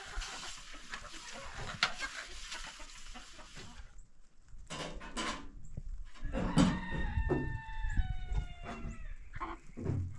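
A rooster crowing once: one long call of about two and a half seconds that droops in pitch at the end, after a few short clucks. Before it, a steady hissing noise stops abruptly about four seconds in.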